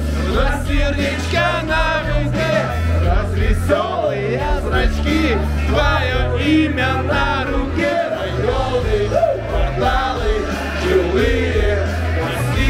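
A man singing karaoke over a loud backing track with a steady, heavy bass line.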